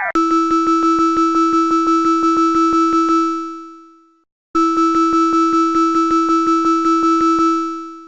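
Electronic emergency alert alarm tone: a steady two-pitch synthesized tone with rapid even pulses, about five a second, fading away after about three seconds, then played again the same way after a short gap. A wavering siren cuts off right at the start.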